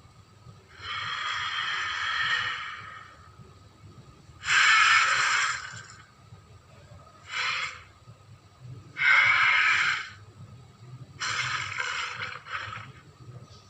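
Carnotaurus creature sound effects: a series of about five breathy, hissing snorts and huffs with no clear pitch, each from a fraction of a second to about two seconds long, separated by short pauses.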